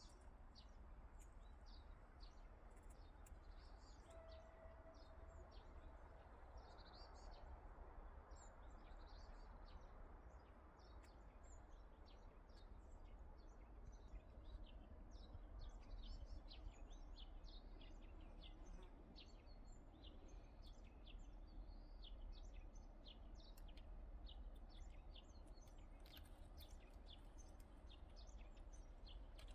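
Faint chirping of small birds, many short high chirps scattered throughout, over a low steady rumble.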